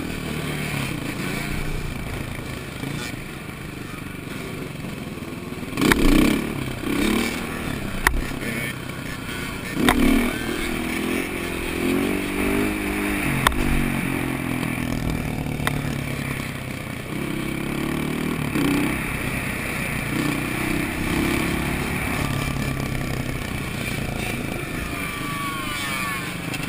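Motorcycle engine heard up close from the rider's helmet camera while riding, revving up and easing off again and again, with wind rushing over the microphone. It is louder for a moment about six and ten seconds in, and there are a few sharp clicks.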